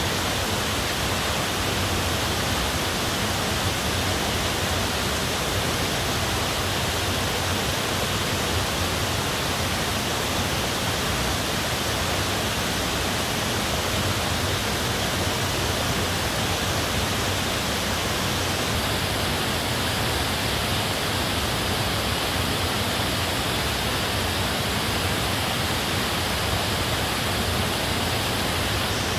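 Steady rushing of water falling from a cave roof into a pool, an even hiss with no breaks.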